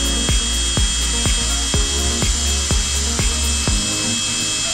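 Cordless drill driving a screw down through a toilet flange, its motor whine steady and cutting off near the end. Background music with a steady beat of about two a second runs underneath.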